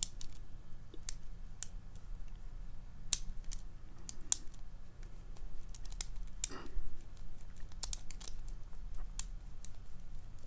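Irregular small metallic clicks and scrapes of a lock pick working the spool pins inside a Papaiz Euro padlock under light tension, over a low steady hum.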